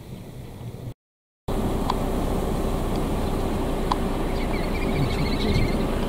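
Steady outdoor rumble and hiss with a faint steady hum, cut off by a brief total dropout about a second in. Over the last second or so comes a faint, rapid string of high peeps from little grebe chicks.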